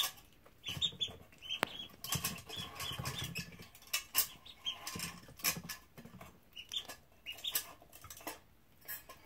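Ducklings peeping: many short, high cheeps in quick runs, with light clicks and tapping as they peck at the feed and water dishes.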